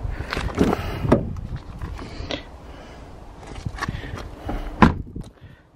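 Clicks and knocks as a Ford Fiesta's rear passenger door is opened by its handle and swung open, with a sharp clack about five seconds in.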